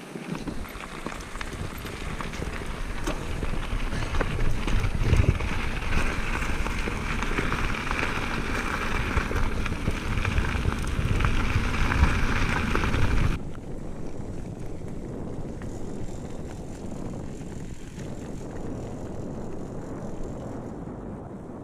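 Mountain bike tyres rolling and crunching over a gravel path, with wind buffeting the microphone. The sound drops abruptly to a quieter rolling noise about two-thirds of the way through.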